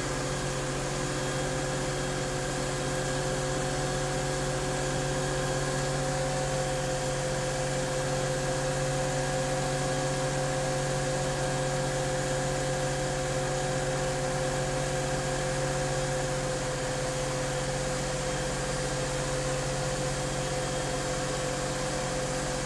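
Steyr tractor's diesel engine running at a steady speed while towing, heard from inside the cab: an even drone with a clear, steady hum.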